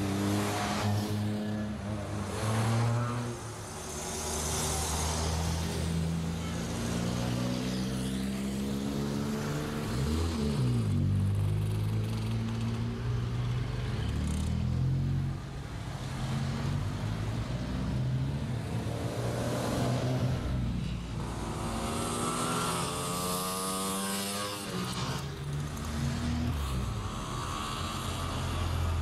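Classic cars driving through a roundabout one after another, their engines running and accelerating as they pass close by. The engine pitch drops as a car goes past, about ten seconds in and again a few seconds before the end.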